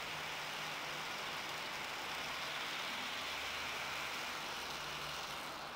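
Steady rolling clatter of an HO scale model ore train's metal wheels running over the track as the long string of ore cars passes.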